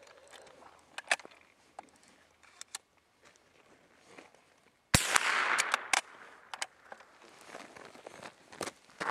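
A single gunshot about five seconds in, its report trailing off over about a second. A few faint clicks are heard before and after it.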